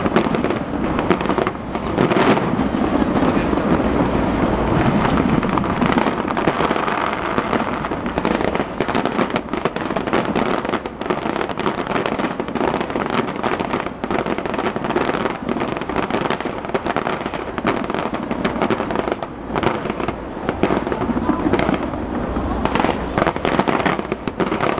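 Large fireworks display in full swing: a continuous, dense run of bangs and crackling from many shells bursting at once.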